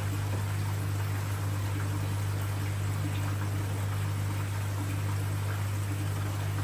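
Water trickling and splashing in a large saltwater aquarium's filtration, over a steady low hum, likely from its pump.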